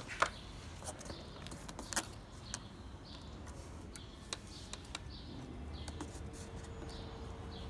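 Scattered light clicks and taps of plastic MC4 solar-panel connectors and cable being handled and plugged together, the sharpest a quarter-second in. A steady low hum comes in about six seconds in.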